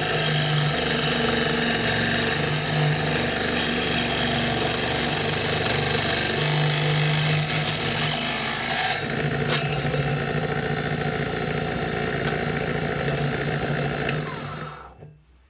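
Homemade table saw driven by a 12 V 775 DC motor, its circular blade running steadily while it cuts through a plywood strip. The sound dies away near the end as the saw stops.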